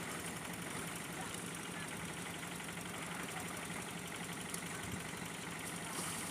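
Small engine running steadily at idle, an even, unchanging putter.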